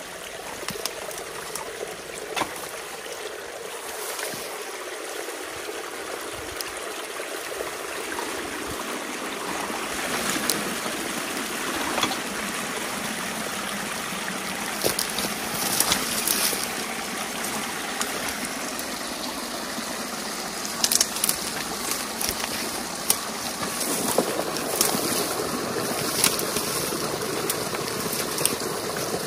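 Water rushing and gurgling through a breach torn in a beaver dam and down a narrow channel, growing louder about a third of the way in as the opening widens. A few sharp knocks from the potato rake working the dam's sticks stand out near the middle and end.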